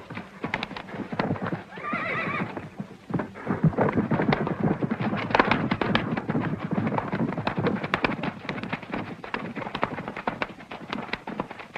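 Several horses galloping: a fast, dense run of hoofbeats, with one horse whinnying briefly about two seconds in.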